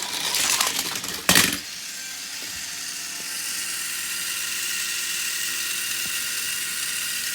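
A rattle and then one loud crash a little over a second in, followed by the steady whir of a small battery-powered motor, like a Plarail toy train running.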